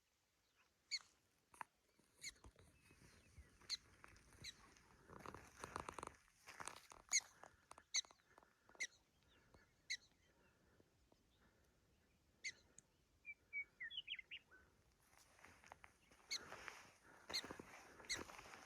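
Black-tailed prairie dogs giving short, sharp, high-pitched barking calls, repeated about once a second, with a brief pause around twelve seconds in. Rushing noise swells briefly about five seconds in and again near the end.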